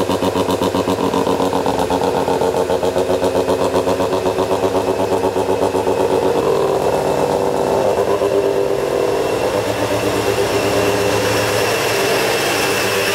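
Mazda FC RX-7's bridgeported 13B rotary engine idling with a rapid, choppy pulsing from the exhaust. The pulsing evens out into a steadier drone in the later part.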